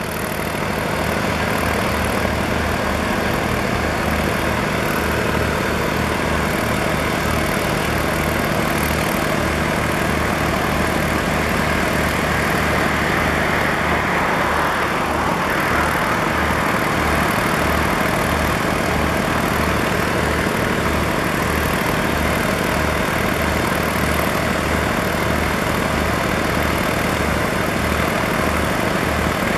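VR Class Dv12 diesel locomotives idling while standing in the yard, a steady engine note with a regular low throb. A hissing noise swells briefly about halfway through.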